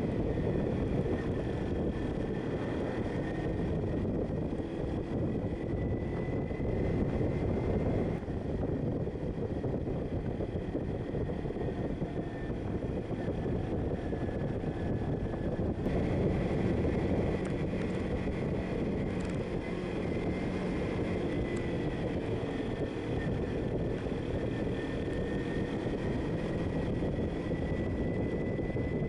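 Motorcycle engine running steadily while riding, under heavy wind rush on the microphone.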